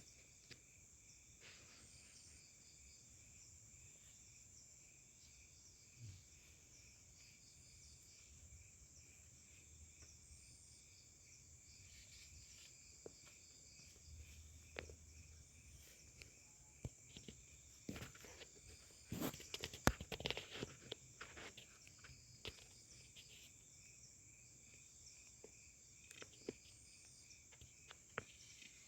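Faint chorus of forest insects such as crickets, a steady high-pitched trill. Scattered short clicks and knocks come through it, a cluster of them about two-thirds of the way in.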